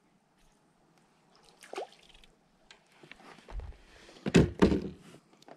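Water splashing and dripping as a small fish is lifted out of the river into an inflatable boat, with a few sharp knocks about four seconds in.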